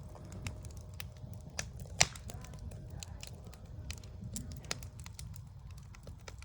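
Backyard wood fire crackling, with scattered sharp pops, the loudest about two seconds in, over a low steady rumble.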